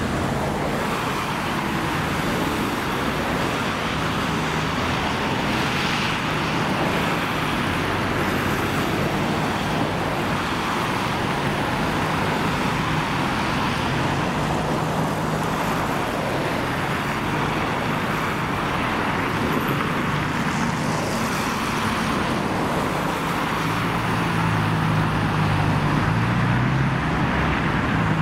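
Steady city road traffic noise, cars and vans running and passing, with a low engine hum growing stronger over the last few seconds.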